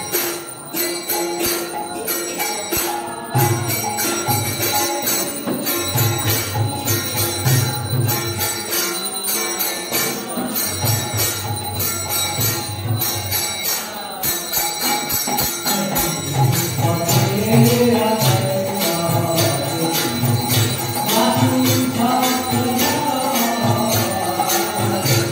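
Temple arati music: bells and small hand cymbals ringing in a steady, fast rhythm over a deep drum beat. A voice singing a devotional chant joins about halfway through.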